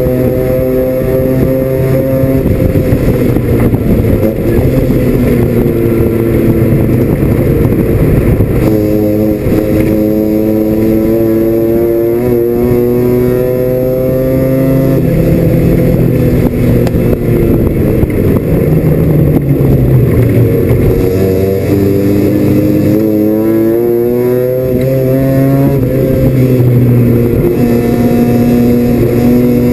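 Mazda RX-7 FC's 13B rotary engine at race pace, heard from inside the race car's cabin. It revs up and drops back again and again as the car accelerates and slows for corners.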